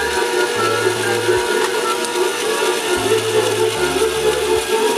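Toy candy grabber's motor and gears running steadily as its claw is driven by the joystick, with music playing over it.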